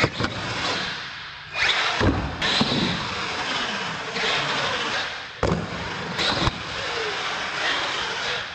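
Radio-controlled monster truck driving and jumping on a concrete floor: its motor revs up and down over tyre noise, with sharp knocks from the truck hitting ramps and landing about two seconds in and again around five and six seconds in.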